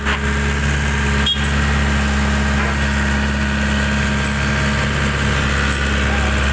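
Backhoe's diesel engine running steadily with an even low hum, with one sharp click about a second in.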